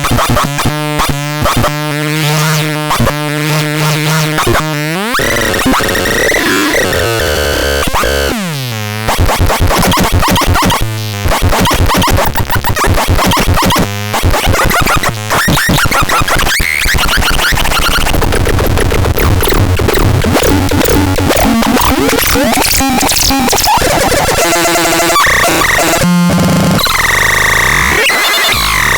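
Synthesizer playing harsh, noisy electronic tones. A rapid pulsing pitched pattern at the start gives way about five seconds in to sweeping glides and dense, clashing noise.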